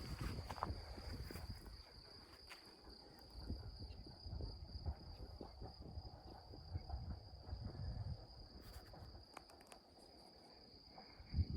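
Cricket trilling in one steady, high-pitched unbroken note, over soft, irregular low rustling and thumps.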